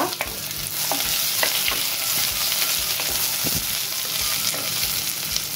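Sliced onions and garlic sizzling in hot coconut oil, with a steady hiss and scattered light clicks as a wooden spatula stirs them in the pot.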